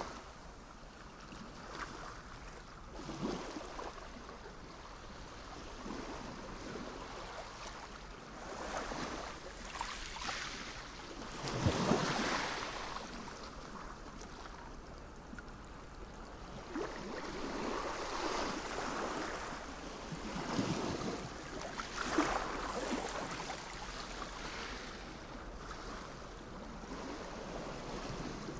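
Sea waves washing in, swelling and easing in irregular surges every few seconds.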